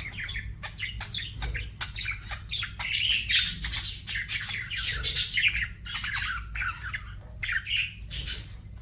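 Budgerigar singing: a fast, continuous warble of chirps, clicks and scratchy squawks, loudest about three seconds in.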